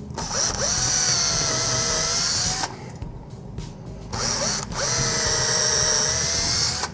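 Cordless drill with a small bit drilling pilot holes through the wall into the wood blocking of the header: two runs of about two and a half seconds each with a pause between, the motor whine rising briefly as it spins up and stopping suddenly.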